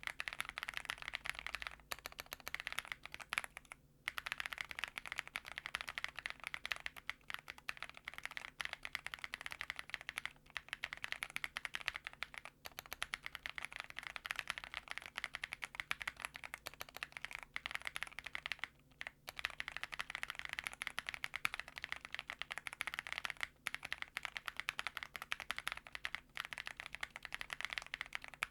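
Fast typing on a Zoom65 mechanical keyboard with an aluminium case, polycarbonate plate, stock Ca Phe Sua Da linear switches and GMK keycaps. The keystrokes clatter continuously, with a few brief pauses.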